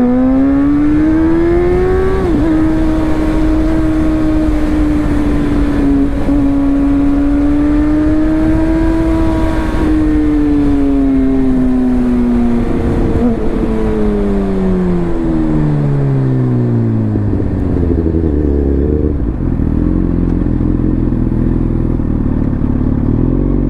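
Suzuki GSX-R1000 inline-four engine at speed, its revs held high, then falling away about twelve seconds in and settling low near the end, under heavy wind noise. It is recorded through the GoPro's housing with no external mic attached.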